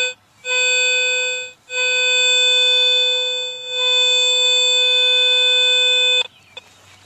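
Garrett AT Pro metal detector giving its target tone: a short beep, a one-second tone, then a long, steady mid-pitched tone that cuts off sharply near the end. The target under the coil is a corroded zinc penny about an inch deep.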